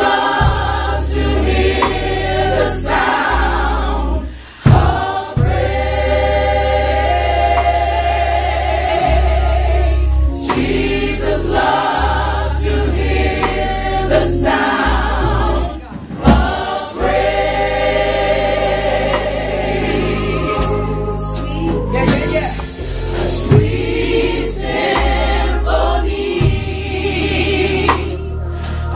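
Gospel choir singing in full voice over low sustained bass notes and occasional sharp drum hits.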